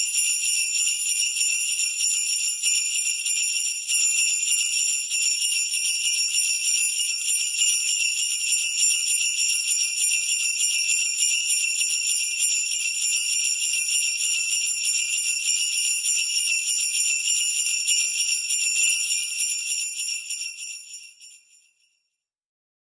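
Sleigh bells shaken continuously in a dense, steady jingle, fading out near the end.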